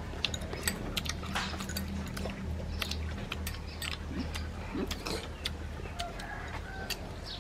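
Chopsticks clicking and tapping against small ceramic bowls during eating: a scatter of short, irregular clicks over a low steady hum.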